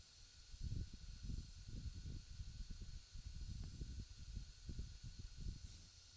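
Hot air rework station blowing with a steady hiss and a faint high fan whine, heating the board to free a glued-on HDMI port. Irregular low rumbling puffs, louder than the hiss, come and go throughout.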